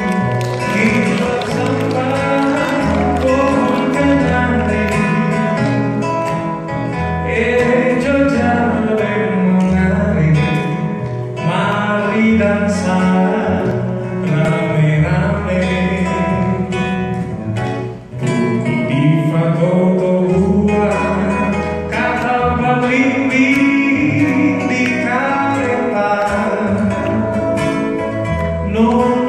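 Live song: singing with acoustic guitar accompaniment, with a brief pause about two-thirds of the way through.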